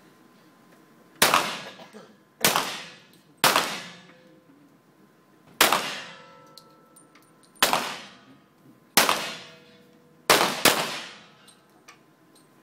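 Eight centerfire pistol shots fired at irregular intervals by several shooters, each a sharp crack with a short echo off the indoor range; the last two come less than half a second apart.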